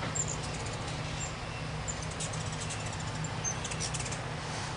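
Ruby-throated hummingbirds giving brief high squeaky chips, with a quick burst of chattering ticks in the middle, over a steady low hum.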